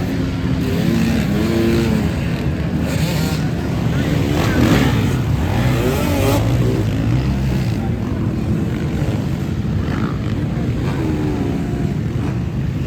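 Several off-road motorcycle engines revving and passing in a steady, loud din, their pitches rising and falling and overlapping.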